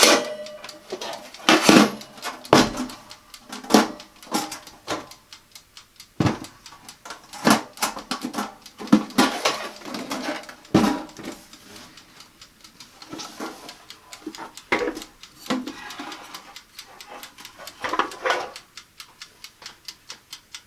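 Toaster oven's timer ticking about three times a second, under louder irregular knocks and clatters as the oven is handled.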